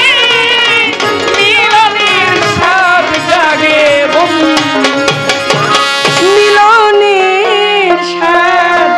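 Live Bengali baul folk music: tabla drums playing a rhythm under an ornamented, wavering melody line.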